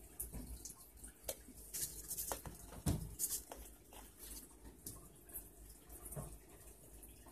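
Handling noise: scattered small clicks, taps and rustles of a plastic cup and surface, with the loudest knock about three seconds in.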